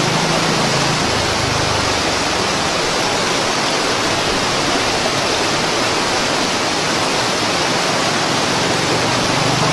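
Muddy flash-flood water rushing steadily down a rocky stream channel, a constant loud rush.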